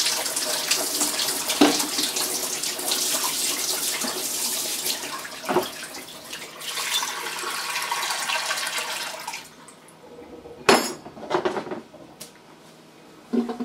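Cold water running from a kitchen mixer tap into a sink as a feeding bottle is rinsed under it. The tap is turned off about nine and a half seconds in, followed by a couple of sharp knocks.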